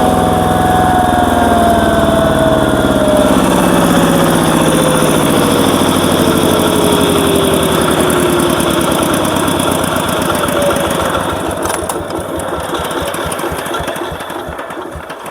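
Power tiller engine driving a screw log splitter, slowing down: a whine falls steadily in pitch over about ten seconds, then the sound fades and the engine's separate firing strokes spread apart as it winds down near the end.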